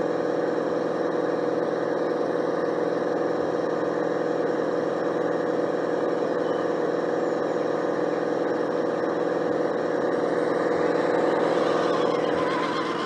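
Drive motor and gearbox of a 1/12 scale radio-controlled DUKW model on a King Kong CA30 6x6 truck chassis, whining steadily. It grows a little louder near the end as the model climbs the slipway out of the water.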